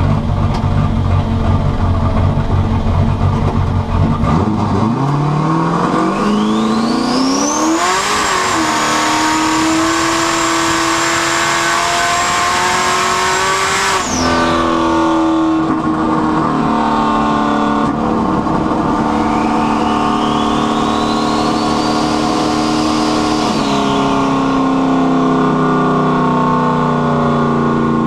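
Turbocharged car engine accelerating hard: a rear-mounted turbo's whistle rises with the revs to a high steady whine, then cuts off suddenly as the throttle closes. A second, shorter pull later has a lower turbo whine that also cuts off abruptly.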